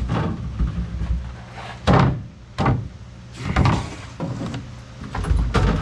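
Refrigerator parts being handled during a teardown: a few sharp knocks and bangs, the loudest about two seconds in, with lighter knocks following over the next few seconds.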